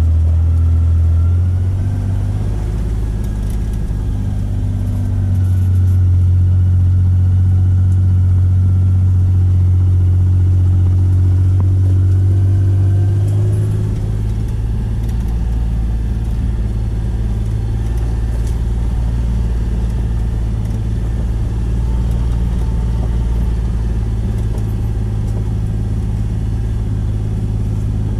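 Side-by-side utility vehicle's engine running as it drives along a dirt track. The engine note rises about five seconds in and settles lower again near the middle.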